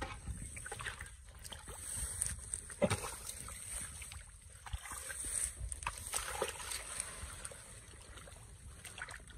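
Hands digging and squelching in wet mud, with irregular wet slaps and small splashes as the mud is scooped and pressed, over a steady low rumble.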